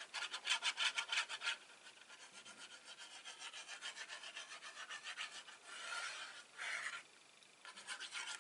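Glue being rubbed onto paper card in quick back-and-forth rasping strokes. The strokes are strongest in the first second and a half, then softer, with a short pause near the end before they start again.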